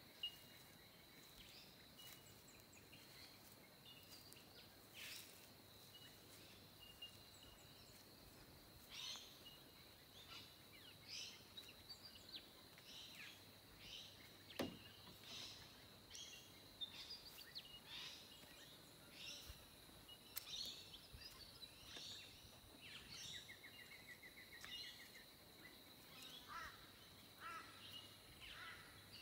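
Faint outdoor ambience of birds calling in short chirps and whistles, more of them in the second half, over a steady high-pitched tone.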